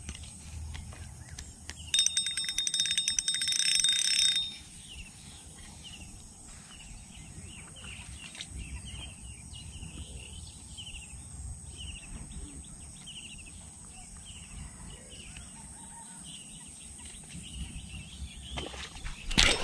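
A spinning reel being cranked for about two seconds, starting about two seconds in: a fast whirring click with a high ringing tone over it. After that come soft, repeated small bird chirps over faint outdoor background.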